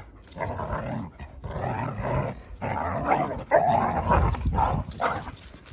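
A corgi and a black Labrador play-fighting, growling in a run of rough, irregular bursts that grow loudest a little past halfway.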